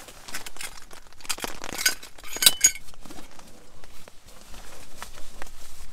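Hard camping gear being handled: a run of clicks and clatters, with a few clinks that ring briefly about two and a half seconds in.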